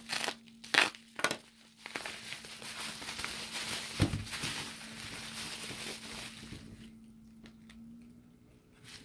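Plastic bubble wrap crinkling and rustling as it is unwrapped by hand, with a few sharp crackles about a second in and a dull thump about four seconds in. The crinkling dies down near the end, leaving a few light clicks as the flip phone is handled.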